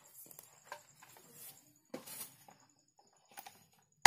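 Scattered light taps and clicks of tools and fittings being handled during refrigerator repair work, ending in one sharp click.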